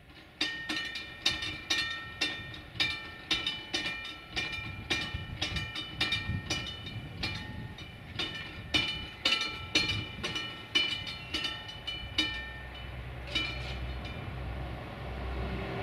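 Level-crossing warning bell ringing: repeated struck chimes, about two a second, with a ringing metallic tone, warning that a train is coming. The ringing stops a little before the end, and a low rumble builds as it fades.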